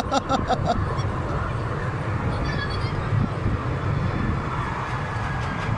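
Steady low rumble of a small amusement-park ride train running, heard from a seat on board. In the first second a young child's voice goes in quick repeated bursts.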